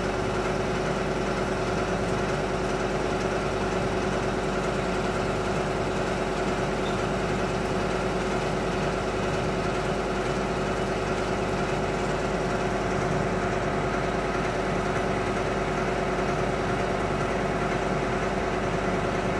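Skumix foaming unit running steadily, a constant machine drone with two held tones, as it feeds disinfectant foam to a spray lance. The sound does not change.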